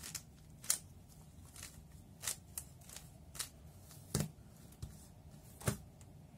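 A 3x3 speed cube being turned by hand through an algorithm: about ten quick plastic clicks at an uneven pace as the layers snap into place.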